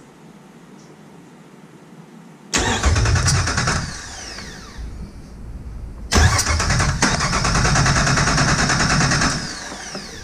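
Jeep 4.0 inline-six turned over by its starter motor for a compression test, without firing, in two bursts: a short one of about a second and a half, then a longer one of about three seconds. Each burst ends with the starter's whine falling away. The cylinder being tested reads a little low.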